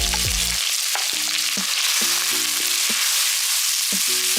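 Sliced onions frying in hot oil in a pan: a steady sizzle.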